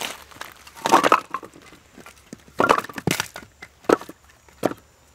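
Footsteps crunching over rough beach ground, irregular steps landing roughly once a second.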